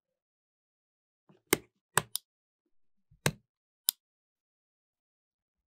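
Five sharp clicks and knocks of hard plastic controller parts being handled and set down, starting about a second and a half in and spread over about two and a half seconds.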